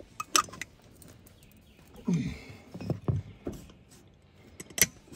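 Scattered sharp clicks and knocks of a T-handle tire-plug insertion tool as it forces a sticky rubber plug through the tread of a punctured UTV tire; the sharpest click comes near the end.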